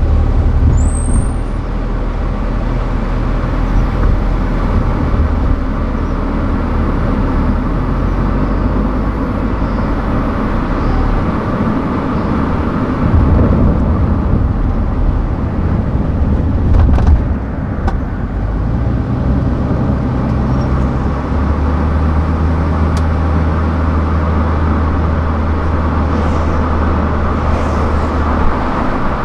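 Car travelling on a highway: steady tyre and road noise under a low engine hum that shifts in pitch a few times as the speed changes.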